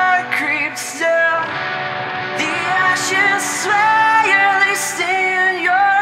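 Rock song: a sung vocal line held and bending over guitar-led band backing.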